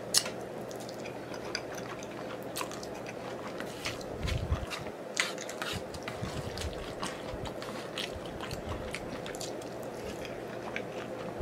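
Close-miked wet chewing and lip smacking as a man eats saucy black bean noodles, with many small sharp clicks scattered throughout. A few dull low knocks come about four seconds in.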